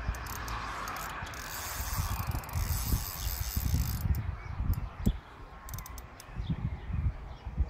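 Wind buffeting the microphone, with faint clicking and whirring of a spinning reel as a hooked fish is played on a bent feeder rod.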